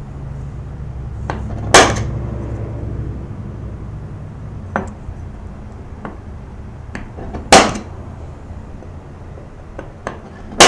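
Automatic center punch snapping as it marks pin-hole centres on a knife tang: three sharp metallic clicks a few seconds apart, with lighter taps and clinks of tools in between.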